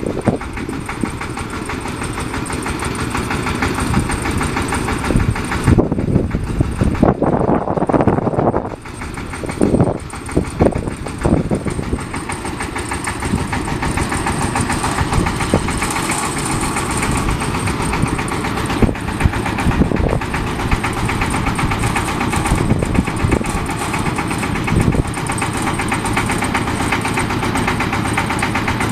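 Diesel engine of a boom lift running steadily with a fast, even chatter, with several louder bursts between about six and eleven seconds in.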